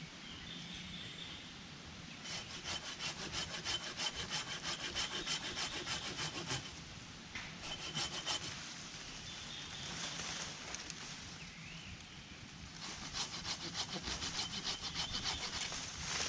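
Hand saw cutting through a fallen wooden branch in quick, even back-and-forth strokes, in three bouts with short pauses between them.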